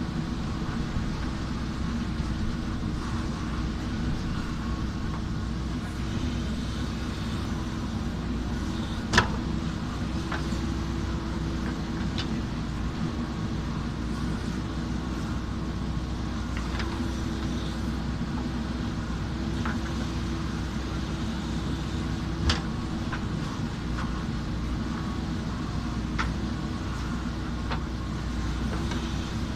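JCB backhoe loader's diesel engine running steadily under work, with a few sharp metallic knocks; the loudest come about nine seconds in and again near twenty-two seconds.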